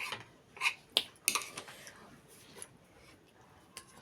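Cutlery clinking against a dish three times in the first second and a half, then only faint sounds.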